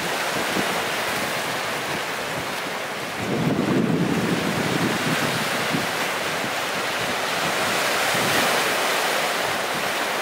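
Sea waves breaking and washing over rocks on a rocky shore, with wind buffeting the microphone; the surf grows louder about three seconds in.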